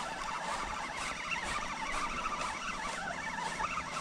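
Fishing reel being cranked steadily, a faint wavering whir, as a hooked fish is reeled up from deep water.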